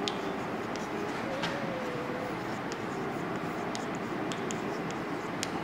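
Chalk tapping and scratching on a blackboard as a word is written, a scattering of short sharp clicks over a steady background hiss.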